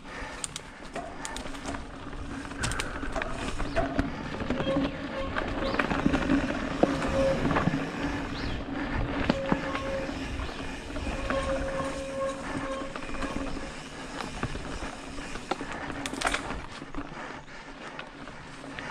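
Mountain bike rolling along a dirt singletrack: steady tyre noise on the trail with frequent rattles and clicks over bumps. A faint buzzing hum comes and goes through the middle.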